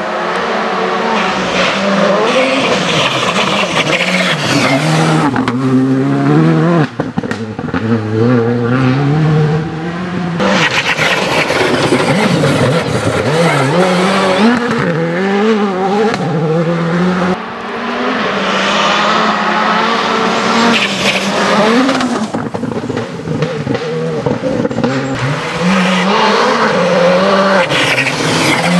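Škoda Fabia Rally2 Evo's turbocharged 1.6-litre four-cylinder engine driven flat out on gravel, its pitch climbing through quick upshifts and dropping off for corners, with gravel and tyre noise under it. The sound breaks off abruptly a couple of times where separate passes are cut together.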